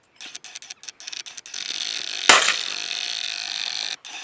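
A single shotgun shot fired at a clay, sharp and loud, about two seconds in. Light clicking comes before it, and a steady hiss runs around it and cuts off near the end.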